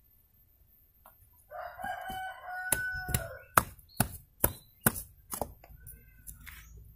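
A rooster crows once, about a second and a half in. As the crow ends, a knife chops into a mulberry tree's root with about seven sharp strikes, roughly two a second.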